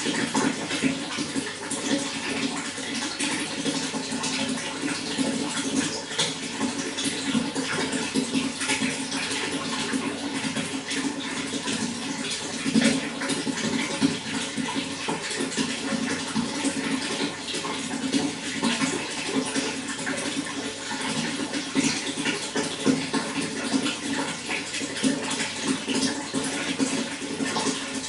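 Running water, a steady continuous rush with many small splashes through it.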